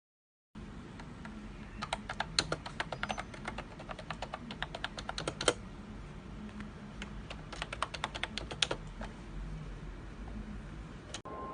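Typing on a MOFII wireless vintage-style keyboard: two quick runs of key clicks with a pause between them, the last stroke of the first run the loudest, over a low steady hum.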